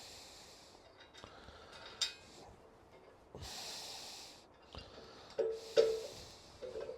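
A person breathing close to the microphone: three long, airy breaths a couple of seconds apart, with two sharp clicks, the louder near the end.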